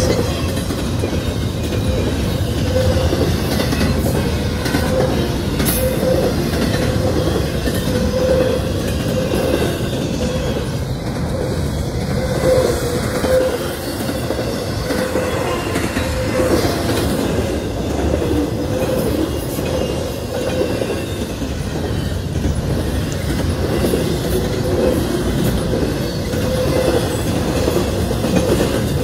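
Double-stack intermodal freight cars rolling past at a steady pace: continuous wheel-on-rail rumble and clickety-clack over the rail joints, with a steady pitched tone over it.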